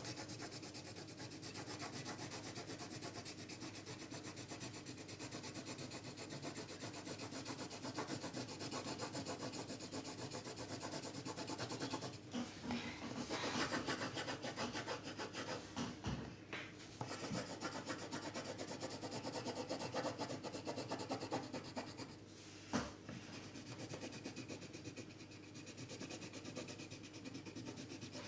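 Colour pencil shading on paper: a steady scratching of quick back-and-forth strokes, with a brief pause partway through and a couple of light taps later on.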